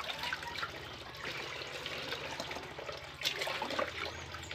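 Water sloshing and trickling as a tin can is dipped into a plastic basin of water and lifted out, with a single sharp knock about three seconds in.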